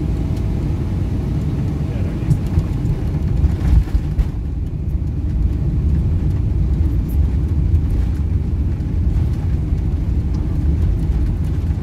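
Cabin noise inside a Boeing 777 airliner on landing: a steady low rumble of engines and airflow, with a few brief knocks about three to four seconds in.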